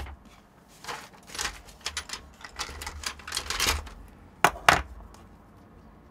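Hand tools and small parts being handled on a wooden workbench: a run of irregular rustling and clattering, then two sharp clicks close together about four and a half seconds in.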